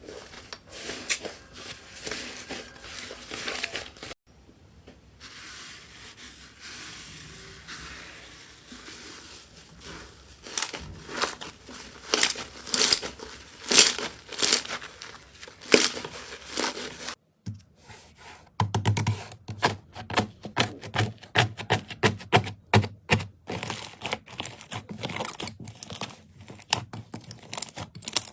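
Slime being squeezed, stretched and pressed by hand close to the microphone, giving runs of sharp little pops and clicks. The sound changes abruptly twice where one clip gives way to the next, and the last part is a fast series of sharp pops.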